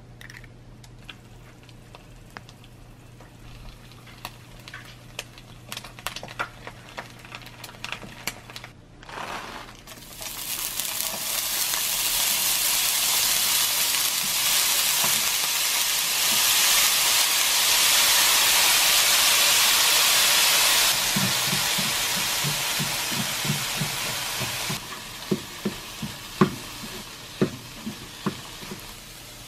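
Riced cauliflower sizzling loudly as it is tipped into a hot nonstick frying pan about ten seconds in, after a stretch of soft crackling from eggs frying. Later a spatula stirs it in quick strokes, and near the end it knocks a few times against the pan.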